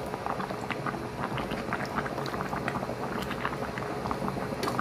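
Chicken soup boiling in a stainless steel pot: steady bubbling with many small, irregular pops.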